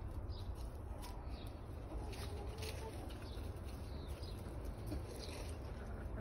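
Brown hens foraging, with occasional soft clucks and light pecking clicks over a steady low background rumble.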